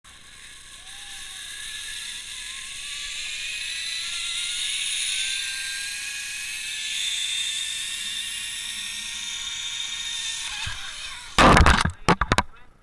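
Zipline trolley pulleys running along a steel cable: a hissing whir with a whine that slowly rises in pitch and grows louder as the rider gathers speed. Near the end, a cluster of loud knocks and rattles as the trolley arrives at the landing platform.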